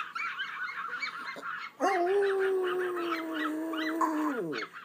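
Pomeranian howling: one long, steady howl that starts about two seconds in and slides down in pitch as it dies away. Rapid high chirping runs underneath throughout.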